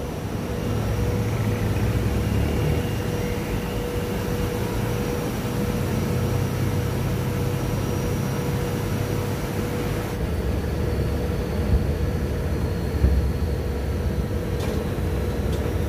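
River boat engine running steadily: a low drone with a constant hum over a rushing wash, its note shifting about ten seconds in.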